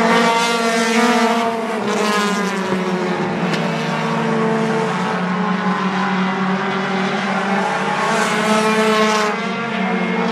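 Several four-cylinder compact race cars running at high revs together in a pack around a short oval, their engine notes overlapping. The sound swells as cars pass near the start, again around two seconds in, and once more about eight to nine seconds in, with the pitch climbing as they accelerate near the start.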